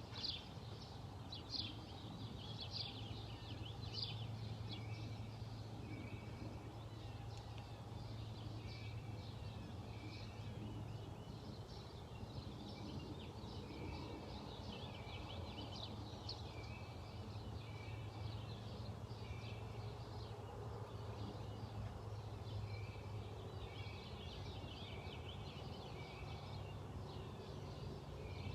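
Morning birdsong: several wild birds chirping and singing, one of them repeating a short note about once a second, over a faint low steady hum.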